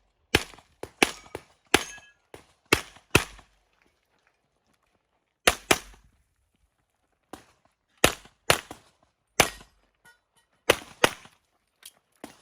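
Handgun shots fired in quick pairs and short strings, with pauses of one to two seconds between groups; a few shots are fainter than the rest.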